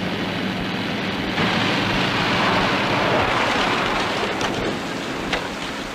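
Car engine and road noise at speed. A louder rushing noise comes in about a second and a half in and eases off near the end.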